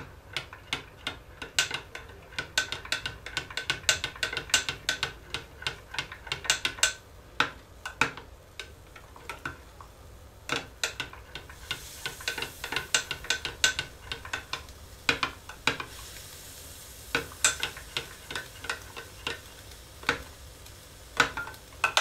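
Metal spoon stirring in a small glass cup, clinking rapidly and irregularly against the glass, with a couple of short pauses; it is dissolving caustic potash into glycerin.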